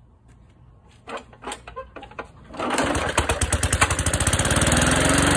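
Briggs & Stratton 5 hp single-cylinder lawnmower engine, its plastic carburetor freshly cleaned, being pull-started: a few knocks, then the engine catches about two and a half seconds in and runs steadily with an even, rapid beat.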